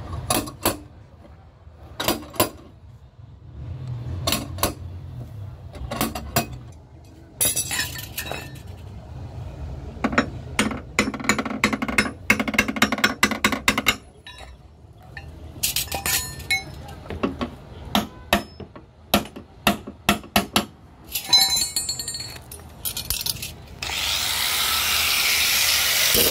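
Hand tools working on a car's door sill: many sharp metallic taps and clinks, with a stretch of scraping in the middle. Near the end a steady loud rushing noise starts.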